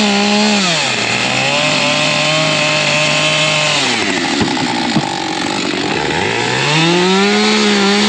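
Chainsaw running at high revs, its pitch dropping and holding lower as it bogs down cutting through the shed wall. About halfway it falls to a low, uneven run with a couple of sharp knocks, then revs back up near the end.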